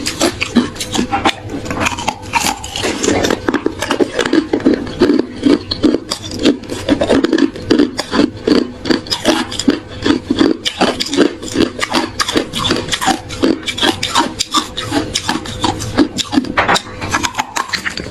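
Close-miked chewing of hard ice: a continuous, rapid stream of sharp crunches and crackles as the ice breaks between the teeth.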